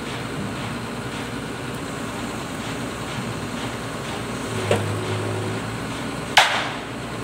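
Crawler crane's engine idling with a steady hum, and one loud sharp knock near the end.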